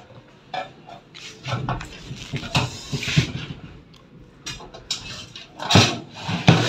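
A screwdriver and hands working on a laminator's plastic end cover, with irregular clicks, knocks and scrapes, louder near the end.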